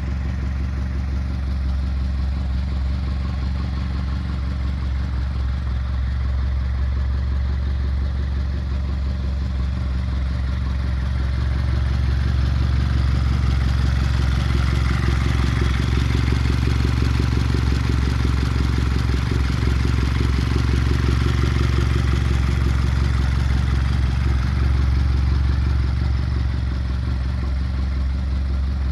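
2013 Hyundai Veloster Turbo's 1.6-litre turbocharged four-cylinder engine running steadily, a little louder from about twelve seconds in until near the end; the owner takes the noise for a bad turbocharger.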